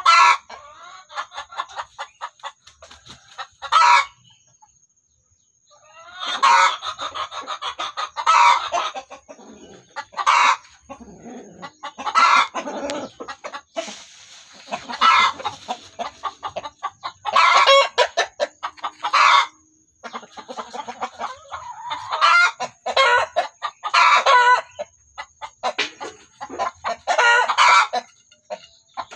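Domestic chickens calling over and over, a rooster crowing and hens clucking, in loud calls every second or two. There is a short pause about five seconds in.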